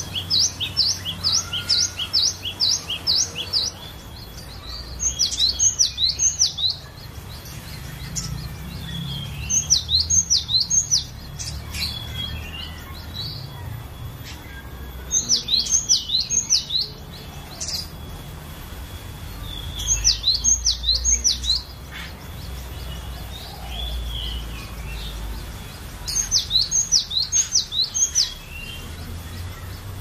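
Cinereous tit (glatik batu) singing: six bursts of rapid, high, down-slurred whistled notes, each phrase repeating one note several times in quick succession, the first and longest run at the very start.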